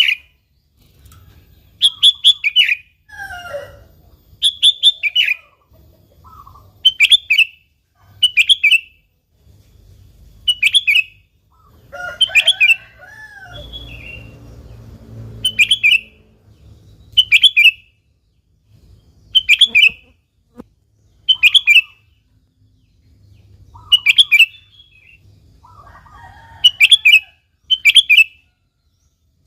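Sooty-headed bulbul (kutilang) calling: loud short phrases of a few quick notes, repeated about every one and a half to two seconds. Fainter, lower bird calls come in between.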